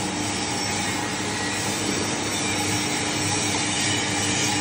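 Small animal-feed pellet machine running under load, pressing feed mash into pellets: a steady mechanical grinding noise with a constant low hum.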